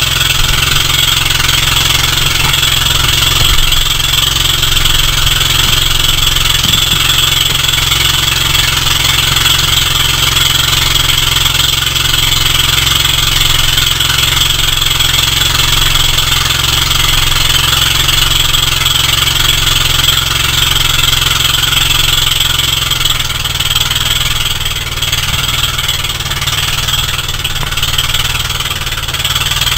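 Inboard engine of a motorized bangka outrigger boat running steadily under way, with a constant rush of water and wind.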